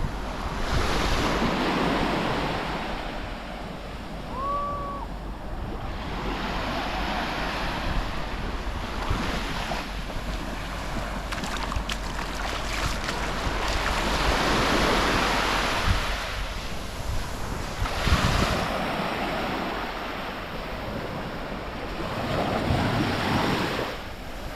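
Small Mediterranean waves breaking and washing up the beach, swelling and fading every few seconds, with wind rumbling on the microphone.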